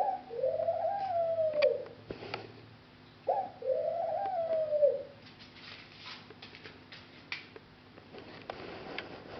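Dove cooing: two calls about three seconds apart, each a short note followed by a longer rising-and-falling coo, with a few faint clicks in between.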